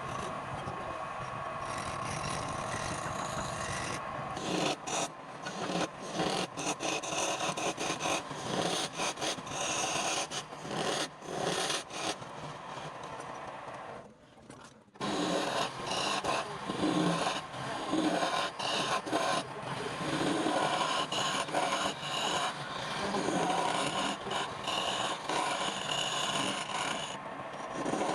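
A tool scraping and rasping across wood, steady at first and then in irregular strokes, with a short break about halfway through.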